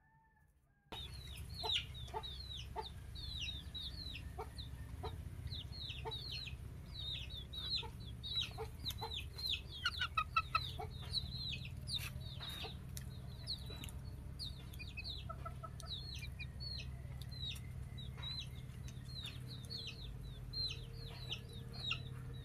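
Chickens peeping and clucking: a dense stream of short, high peeps falling in pitch, with a brief run of louder clucks about ten seconds in, over a low steady hum. The sound starts about a second in after near silence.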